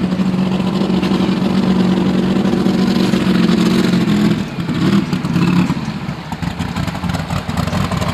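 Turbocharged V8 engine of a modified pulling tractor, held at steady revs, then dropping about four seconds in. After a couple of short blips it settles into a rougher, choppier low running.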